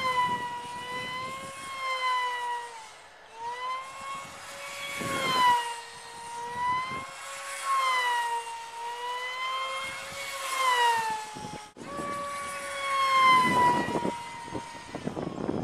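Brushless electric motor and small 4.5x4.5 propeller of a foam-board RC pylon racer whining at high speed, its pitch swooping up and down as the plane passes and turns, with two short breaks. Wind rushes on the microphone near the end.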